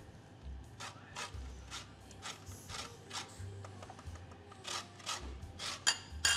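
A lemon rubbed up and down a metal box grater to zest it: repeated short rasping strokes, about two a second.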